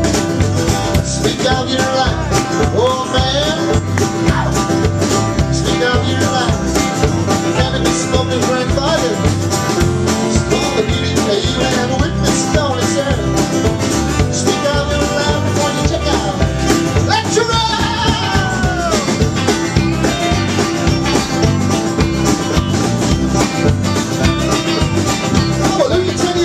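Live band playing an up-tempo country-style tune: acoustic guitar strummed over bass guitar and drums in a steady groove.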